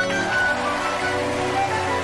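Instrumental soundtrack music: held melody notes over a steady low drone. For about the first second a hissing wash of noise sits under the music, then fades.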